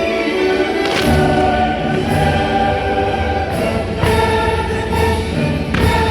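Choral music with orchestra played loud, the choir holding long sustained chords, punctuated by about five sharp hits that cut across the whole sound.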